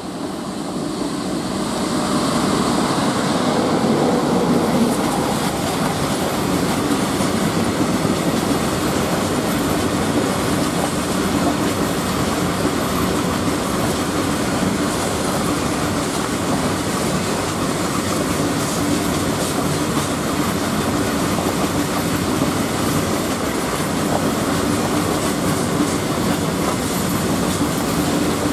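A long freight train of covered open-top wagons rolling past at speed behind an electric locomotive: a steady heavy rumble with the clickety-clack of wheels over rail joints. It swells over the first couple of seconds as the locomotive goes by, then holds level as the wagons stream past.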